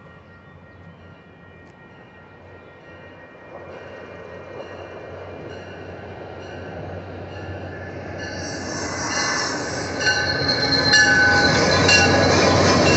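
MBTA commuter rail train approaching and growing steadily louder, its brakes squealing with several high tones that come in strongly about two thirds of the way through as it slows.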